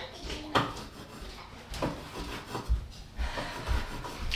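Kitchen items being handled: about half a dozen scattered knocks and clicks with rubbing between them, as things are picked up and set down.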